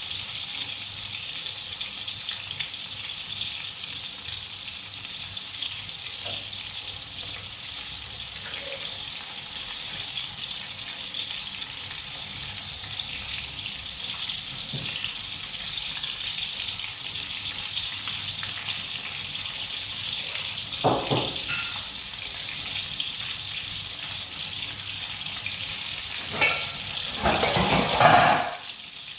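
Water running with a steady hiss, with a few knocks and clatters near the end.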